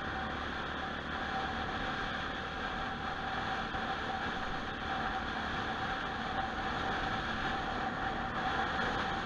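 Motorcycle cruising at a steady speed: a constant rush of wind and road noise over the engine's steady running, with a faint steady whine underneath.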